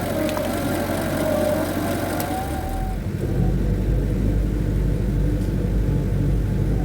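A vehicle engine running. About three seconds in the sound changes to a deeper, steady low rumble.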